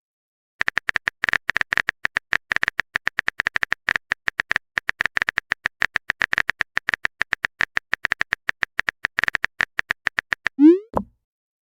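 Typing sound effect: a fast, uneven run of short keyboard clicks for about ten seconds. Near the end it stops and a short rising 'bloop' message-sent sound plays, followed by a single click.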